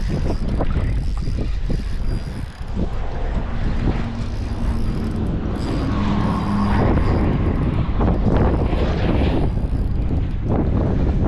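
Wind buffeting the microphone: a heavy, uneven low rumble with gusty swells, and a brief faint hum around the middle.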